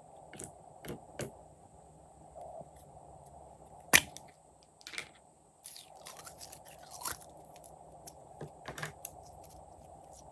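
Glossy slime being stirred and squished, making scattered wet clicks and crackles, with one sharp loud click about four seconds in.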